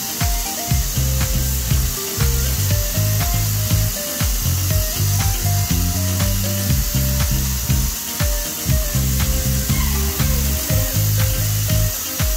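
Background music with a stepping bass line, a melody of held notes and a steady beat. Under it runs a steady hiss from a spray gun laying primer on a car body.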